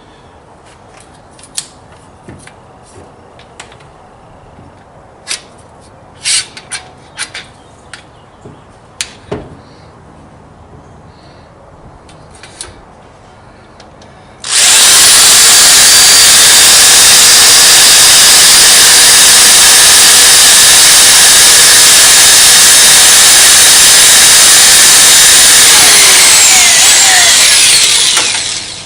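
A few light clicks and knocks of handling, then about halfway through an electric drill starts and runs steadily at full speed for about fourteen seconds before winding down. It is drilling a hole in the lathe carriage, to be tapped for a mounting screw.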